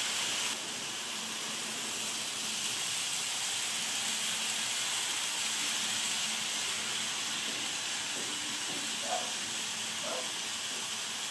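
KATO model Pennsylvania Railroad GG1 electric locomotive and its passenger cars running on track: a steady hiss of wheels and motor with a faint low hum, and a light click about nine seconds in.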